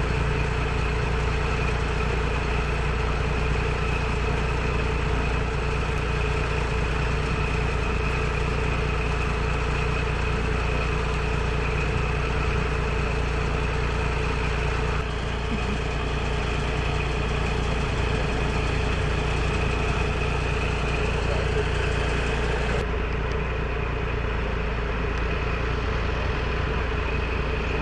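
Steady drone of an engine running at constant speed: a low hum with a few held tones above it, unbroken throughout. Its tone shifts slightly about fifteen and twenty-three seconds in.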